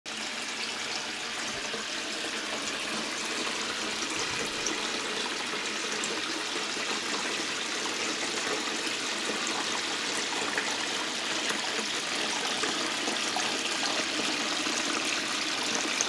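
Small decorative rock fountain running, water trickling and splashing steadily down its tiers into the basin.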